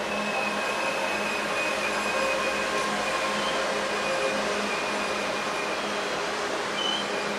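DB ICE high-speed electric train passing through a station: a steady rush of wheels and air, with a low hum and a high whine from its electric drive.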